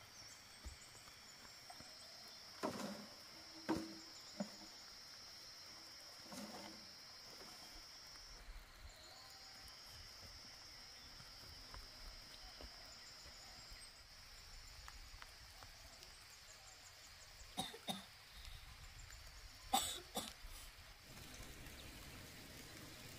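Faint outdoor ambience: an insect's steady high drone that breaks off briefly about a third of the way in and then resumes, with a few short knocks, a cluster early on and another a little before the end.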